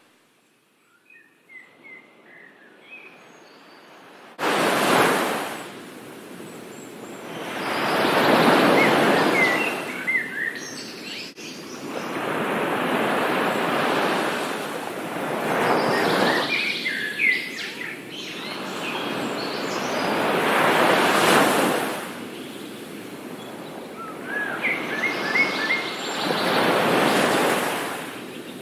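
Surf washing onto a shore, swelling and fading every few seconds, with short bird chirps in small clusters now and then. It is faint at first and comes in suddenly about four seconds in.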